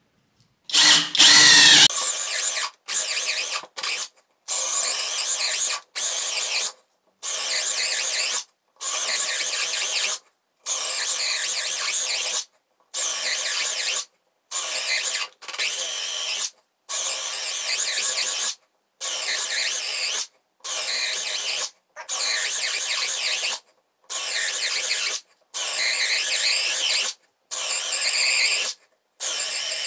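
Parkside Performance PBSPA 12 B2 12 V brushless cordless drill driver drilling hole after hole with a 10 mm bit. It runs in short bursts of a second or so, one about every two seconds, with a steady motor whine under the cutting noise.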